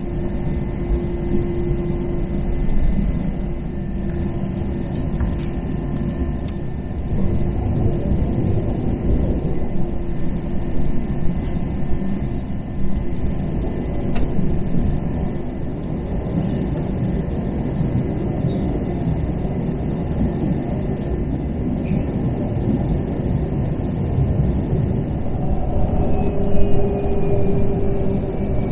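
Cabin noise of an Airbus A321 taxiing: a steady low rumble from the running jet engines and the rolling airframe. A steady hum sits over it, stops about halfway through and comes back slightly higher near the end.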